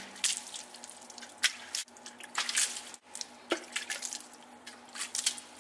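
Water splashing and dripping off a tire, with irregular drips and spatters, as the tire is doused to find a slow leak.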